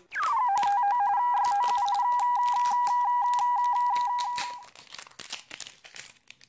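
An electronic sound effect: a tone that swoops quickly down in pitch, then trills rapidly between two close notes like a phone ringer for about four and a half seconds before fading out. Throughout, and alone near the end, the plastic shrink-wrap of a capsule toy egg crinkles as it is peeled off.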